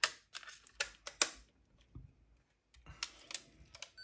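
Sharp plastic clicks and knocks as a cassette tape is seated in an Aiwa HS-PL777 walkman's tape compartment, the loudest about a second in. After a short pause come a few more clicks as the player is handled.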